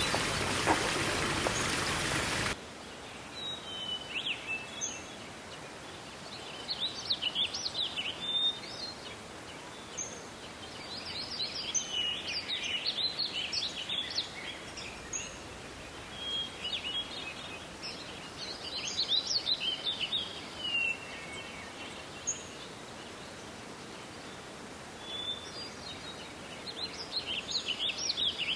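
A steady rushing noise cuts off abruptly about two and a half seconds in. After it, parrots chatter in repeated bursts of quick, high chirping calls a few seconds apart over a faint steady hiss.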